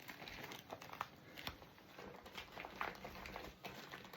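Faint, irregular crinkling and rustling of clothing, the PVC trousers and satin shirt moving.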